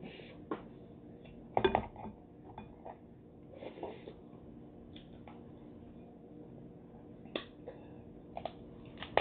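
Crab shell and leg pieces being handled over a glass bowl: scattered clicks and clinks against the glass, with the loudest cluster of clicks about one and a half seconds in and a few more near the end.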